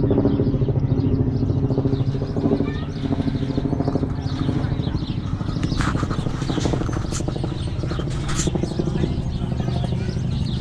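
An engine running steadily, with a fine rapid pulse and an even hum.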